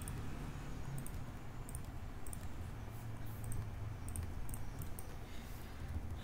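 Scattered clicks of a computer mouse and keyboard while a worksheet is edited, over a steady low hum.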